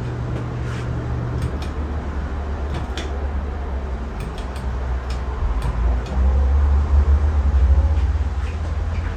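31¼-inch Casablanca Wailea ceiling fan running on a replacement start/run capacitor, giving a steady low rumble from its motor and moving air, with a few faint ticks. The low rumble swells between about six and eight and a half seconds in.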